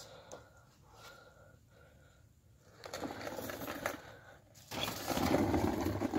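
Hands working loose parking brake cable parts: faint handling noise at first, then a louder, steady rustling and scraping in the last second and a half.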